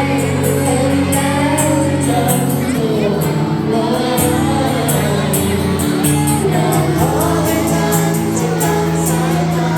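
A song: a singing voice over backing music with a steady beat.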